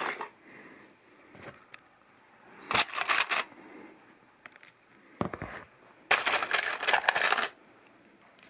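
Plastic LEGO pieces clicking and rattling as they are handled and sorted, in three short bursts with quiet gaps between them.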